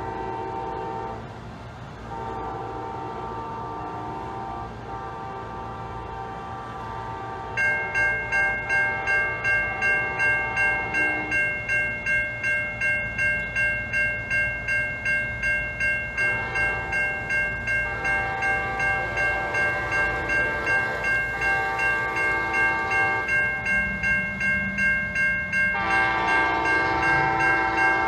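Approaching Amtrak passenger locomotive sounding its multi-chime horn in long blasts. About 7.5 s in, an electronic grade-crossing warning bell starts ringing about twice a second as the gates come down. The horn keeps sounding over the bell and grows louder near the end.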